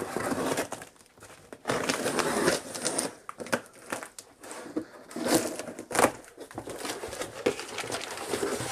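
A long cardboard shipping box being opened by hand: its wrapping crinkles and tears and the cardboard rustles, with a couple of sharper knocks about halfway through.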